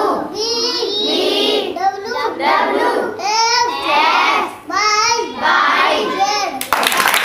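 A young boy singing solo without accompaniment, in short phrases with a wavering, sliding pitch. Near the end the seated children break into clapping.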